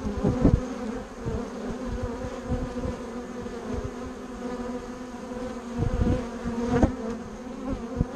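Many honeybees buzzing at a hive entrance, a steady hum of wingbeats. Louder swells come as single bees fly close past the microphone: at the very start, about six seconds in, and again just before seven seconds.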